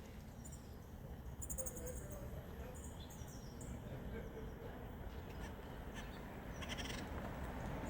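Red-headed woodpecker making two short, quick-fire high-pitched rattles, one about a second and a half in and another near the end, over a steady low background noise.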